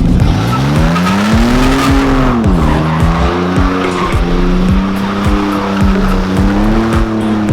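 Truck engine revving up over the first two seconds, dipping briefly, then held at high revs, with tyres squealing and skidding through a donut.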